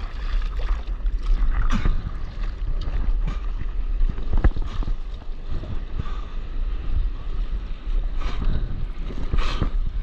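Wind rumbling on the microphone over water sloshing and splashing against a stand-up paddleboard in chop, with intermittent splashes of spray and paddle strokes, several of them near the end, and a sharp knock about halfway through.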